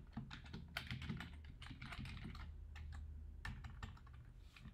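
Typing on a computer keyboard: a run of irregularly spaced key clicks.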